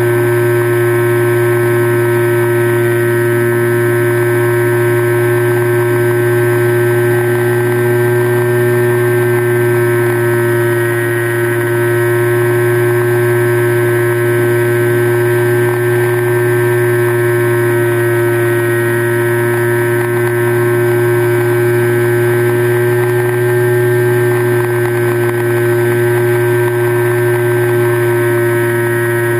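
Steady drone of a model aircraft's motor and propeller, picked up by a camera mounted on the aircraft, holding an even pitch that wavers slightly now and then.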